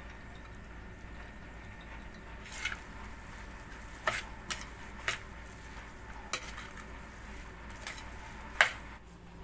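A metal spoon stirring a moist flaked-milkfish and vegetable filling in a stainless steel bowl, with several short clinks and scrapes of the spoon against the bowl, the loudest near the end.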